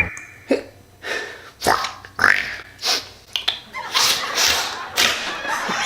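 A man's halting, gasping inhales building up to a sneeze. There are about nine short breaths roughly half a second apart, louder in the last couple of seconds.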